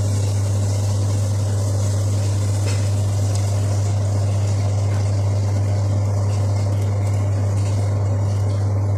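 Steady low electrical hum of a running kitchen appliance motor, level and unchanging, with a faint hiss above it.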